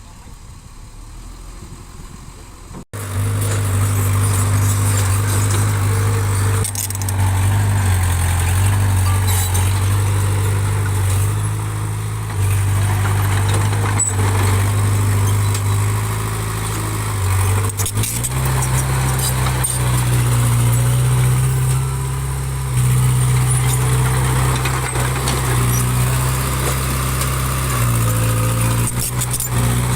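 Diesel engine of heavy earthmoving machinery running steadily, cutting in loud about three seconds in after a quieter stretch. Its pitch steps up about eighteen seconds in.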